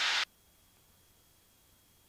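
The end of a man's voice over the aircraft headset intercom cuts off abruptly a quarter second in, leaving near silence with only a faint steady high-pitched tone: the intercom is passing no sound.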